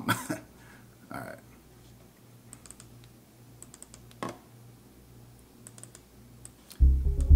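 Scattered faint clicks of a computer mouse and keyboard, then, just before the end, a loud bass-heavy electronic loop with drums starts playing from the Reason Grain sampler.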